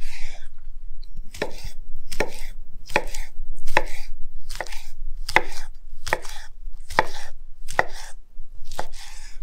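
Large knife slicing through a grilled sausage and knocking on a wooden cutting board, a steady run of about a dozen cuts a little more than one a second.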